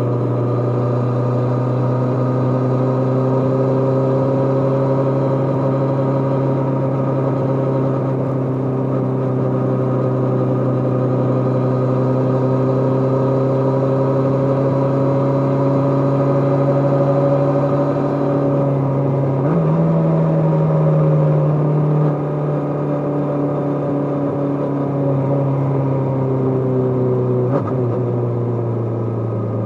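Kawasaki GPZ550's air-cooled inline-four engine running under way, its note slowly rising as the bike gathers speed. About twenty seconds in the pitch changes, and a couple of seconds later the sound drops a little.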